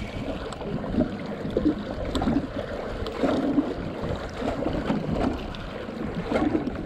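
Seawater sloshing and slapping against a small fiberglass boat's hull in uneven surges.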